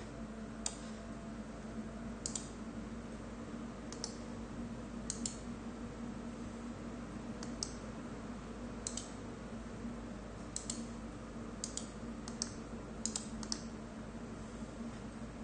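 A dozen or so scattered, irregular clicks of computer keys being typed on, some in quick pairs, over a steady low hum.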